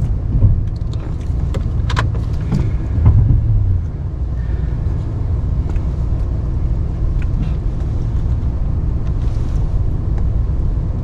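Ram 1500 Classic pickup running with a steady low rumble while pushing snow with its plow blade, with a few sharp knocks about two seconds in.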